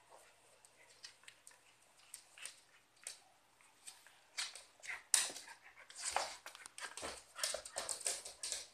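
Cocker spaniel making a quick run of short, noisy dog sounds while worrying a plush toy, starting about four seconds in and getting louder, with faint clicks before.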